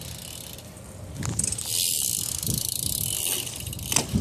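BMX bike rolling on pavement, its tyres hissing on the ground, with a sharp clack near the end.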